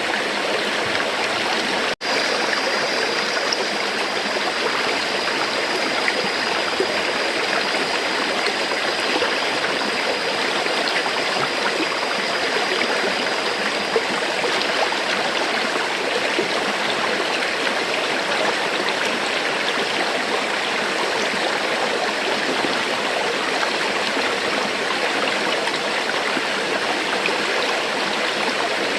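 Steady rush of flowing river water, broken by a split-second dropout about two seconds in.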